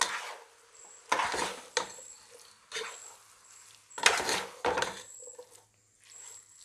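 Plastic slotted spatula stirring instant noodles and masala in a nonstick pot, scraping against the pot in a series of separate strokes, the loudest about four seconds in.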